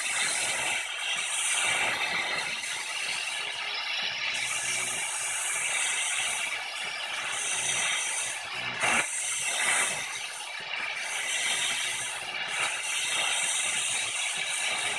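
Oxy-fuel torch flame hissing steadily as it heats the flange of a seized rear brake rotor, to expand it and free it from the wheel hub. One sharp snap about nine seconds in.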